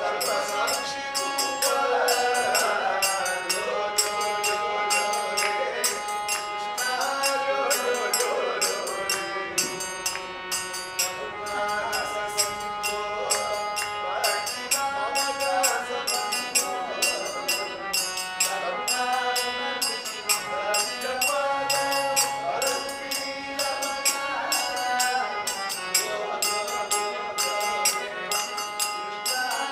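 Devotional bhajan music: voices singing over a harmonium's held reed tones, with small hand cymbals striking a steady beat throughout.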